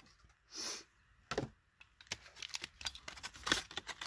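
Clear plastic blister pack being torn and peeled away from its cardboard backing card. A short tearing hiss about half a second in, then scattered crackles and clicks of the stiff plastic, busiest around three and a half seconds in.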